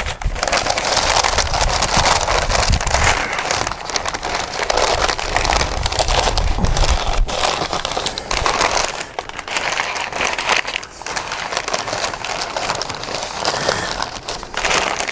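Paper crinkling and crackling as it is folded tightly around a smoked beef brisket on a metal sheet pan.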